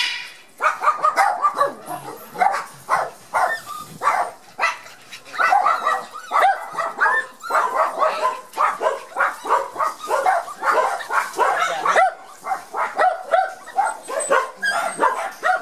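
Border collie puppies yipping and whining: a quick, steady string of short calls, broken only by a couple of brief lulls.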